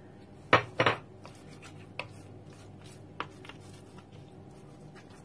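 Hands rubbing and pressing seasoning into raw pork chops on a wooden board: two sharp knocks about half a second in, then a few lighter taps and soft rubbing.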